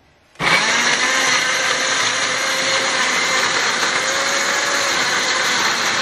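Countertop electric blender switched on about half a second in, then running steadily, pureeing chopped tomatoes and onion into a smooth sauce.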